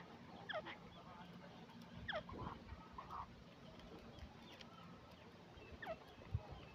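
Faint bird chirps: a few short notes that fall quickly in pitch, heard about half a second in, around two seconds, and near the end, over a low steady hum.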